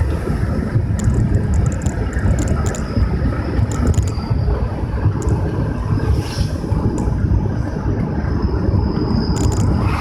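Steady low rumble of a vehicle on the move: road and engine noise, with faint scattered clicks and a short hiss about six seconds in and again near the end.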